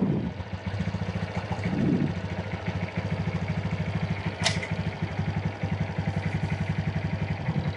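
Honda Super Cub C125's small single-cylinder four-stroke engine idling in first gear on the center stand, turning the rear wheel and drive chain, with a steady, rapid, even beat. A single sharp click sounds about four and a half seconds in.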